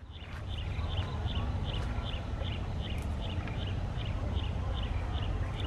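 An animal calling with a steady series of short high chirps, about two or three a second, over a constant low rumble.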